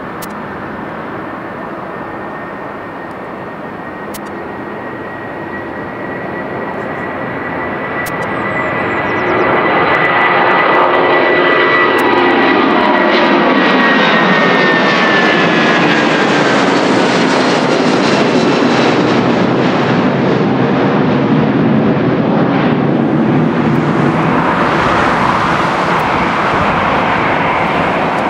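Boeing 757-300 jet engines at takeoff power as the airliner rolls and climbs out. The engine roar grows louder about 9 seconds in as it comes overhead, and its high whine slides down in pitch as it passes and recedes.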